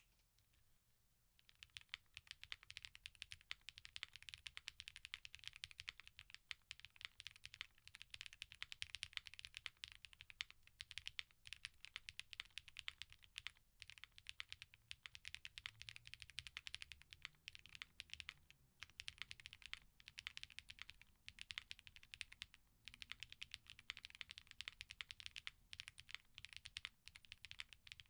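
Space65 R3 custom mechanical keyboard with an FR4 plate, plate foam, lubed switches and GMK keycaps being typed on: a fast, continuous run of keystrokes that starts about a second and a half in, with a few brief pauses.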